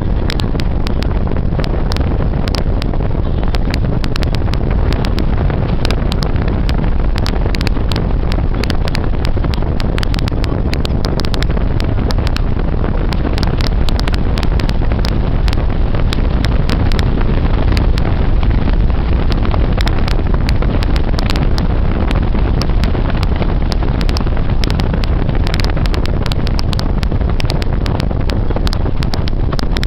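Vehicle travelling on the road: a steady low rumble of engine and road noise, with heavy wind buffeting and crackling on the microphone.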